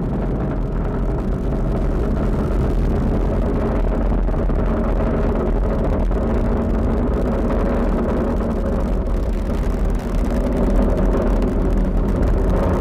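Falcon 9 first stage's nine Merlin 1D rocket engines under full thrust in ascent: a steady, loud roar, heaviest in the deep low end.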